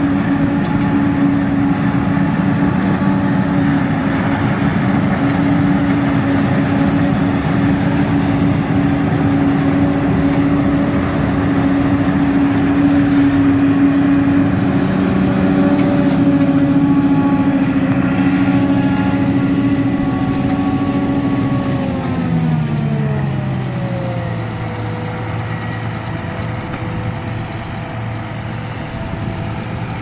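John Deere 7750i self-propelled forage harvester chopping maize, with a John Deere tractor pulling a silage wagon running alongside: a loud, steady machine drone made of several tones. About 22 seconds in the pitch slides down over a couple of seconds and settles lower and slightly quieter.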